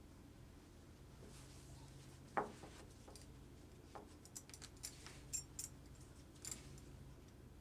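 Faint handling sounds of SCBA harness parts as webbing waist belts are threaded onto the plastic lumbar pads: one knock about two seconds in, then a scattered run of light clicks and scrapes.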